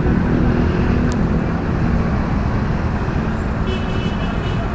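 Road traffic from slow-moving cars with a steady low engine hum, heard from a bicycle riding alongside them. A brief high ringing sound comes near the end.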